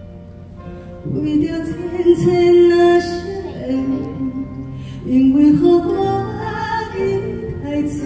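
A woman singing a slow song over instrumental accompaniment. Her voice comes in about a second in, with long wavering held notes.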